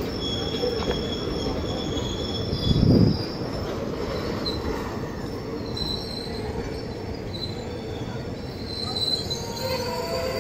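Indian Railways blue sleeper coaches rolling past on the rails: a steady rumble with thin, high-pitched wheel squeals throughout, and a short thump about three seconds in.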